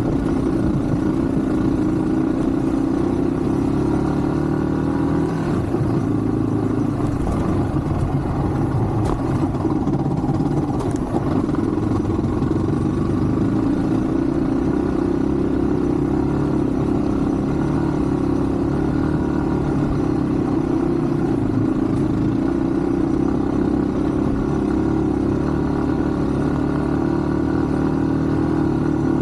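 Yamaha WR155's single-cylinder engine running steadily while the motorcycle is ridden, its note drifting a little up and down with the throttle.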